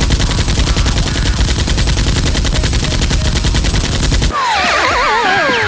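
Rapid automatic gunfire sound effect, a continuous machine-gun burst that cuts off suddenly about four seconds in. It is followed by a cluster of warbling, falling whistle-like tones.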